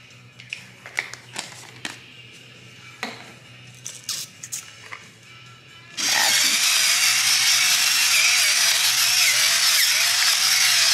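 A few light taps of dried oregano being shaken from a spice jar. About six seconds in, an electric pepper grinder starts up and runs steadily, a loud whirring motor with a wavering whine, grinding pepper.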